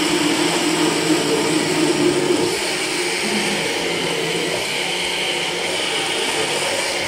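Countertop blender, not a high-speed model, running steadily as it purées raw potatoes, onion and eggs into a smooth batter.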